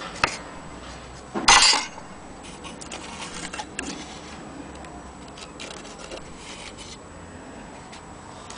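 Antique Black Forest cuckoo clock being handled: light clicks and clinks of its parts, with one brief loud rattle about a second and a half in.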